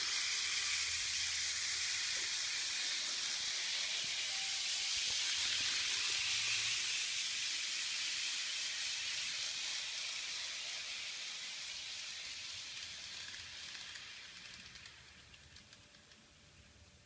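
Kato N-scale model commuter train running on Unitrack: a steady high hiss from its small motor and wheels on the track, fading away over the last several seconds.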